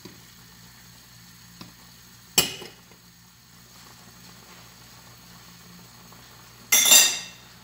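Metal kitchenware clinking: one sharp ringing clink about two and a half seconds in, and a longer rattling clatter near the end, over a faint steady hum.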